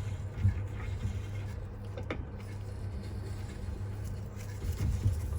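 A thread tap turned by an adjustable spanner, cutting out the stripped pedal thread in a bicycle crank arm: a few faint clicks and creaks over a steady low hum.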